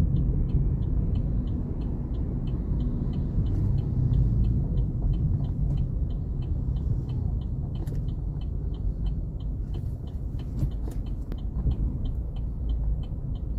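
Cabin noise of a Chevrolet Onix turbo on the move: a steady low road and engine rumble, with a light, even ticking about three times a second throughout.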